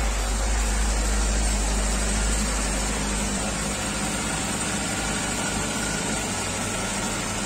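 Suzuki Bandit 1250S's fuel-injected 1255 cc inline-four idling steadily, cold, just after its first start following about six months of winter storage. The sound eases slightly about three seconds in.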